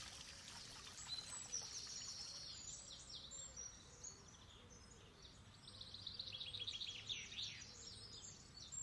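Faint outdoor ambience of several birds chirping and calling in quick high note series, easing off for a second or so in the middle.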